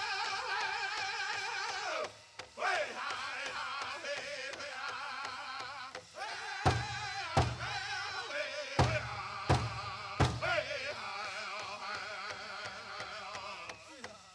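Powwow drum group singing a men's chicken dance song, high voices with wavering pitch over the big drum. Midway through, five loud accented drumbeats land about 0.7 s apart.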